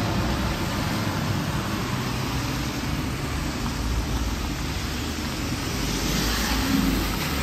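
Steady rumble and hiss of a moving vehicle, swelling slightly near the end.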